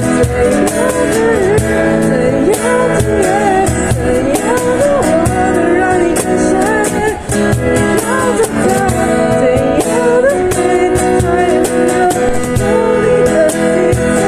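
Pop song playing: a steady drum beat with a melody line that bends and wavers over sustained backing chords, and no words sung.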